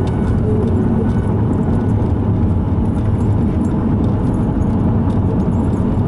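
Steady road and engine noise of a moving car heard from inside the cabin, a constant low rumble.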